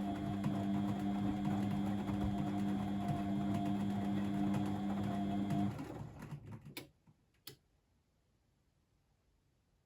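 Blomberg WAF 7442 SL washing machine's motor running with a steady hum, winding down and stopping about six seconds in, followed by two sharp clicks and then silence.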